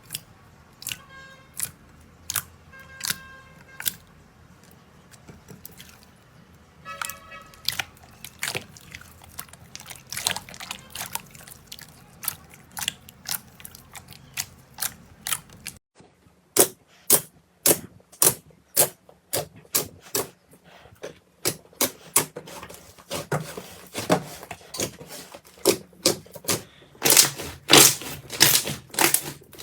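Slime being pressed and squeezed, giving a string of sharp pops and clicks, some with a short ringing tone. About halfway through the sound changes to denser, louder crackling, heaviest near the end.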